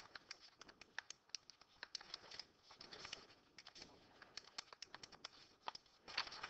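Faint, irregular clicking of calculator keys being pressed, several a second, as a multiplication is keyed in.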